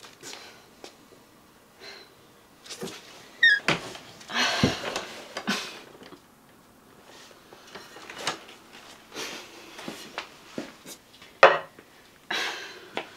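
Sparse movement noises in a small, quiet room: knocks, clicks and rustling swells, with a brief squeak about three and a half seconds in and a sharp knock shortly before the end.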